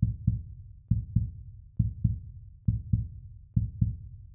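Heartbeat-style outro sound effect: deep double thumps in a steady lub-dub rhythm, five pairs about 0.9 seconds apart.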